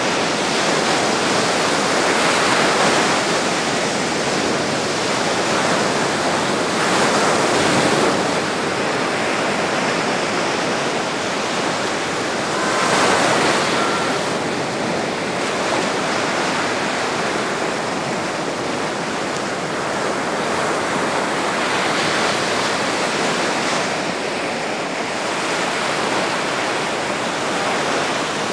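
Sea waves breaking over rocks and washing up a shore: a continuous rush of surf that swells with the bigger breakers about 2, 7 and 13 seconds in.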